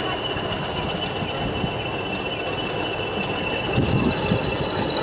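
Class 20 diesel locomotive drawing a train slowly into a station, a steady high-pitched squeal from the wheels over the low rumble of the engine, with a few heavier low thumps about four seconds in.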